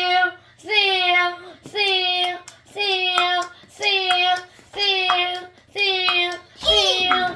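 A child's voice making a vocal sound effect: one short sung syllable on the same pitch, repeated about once a second, eight times. The last call wavers, sliding up and down in pitch.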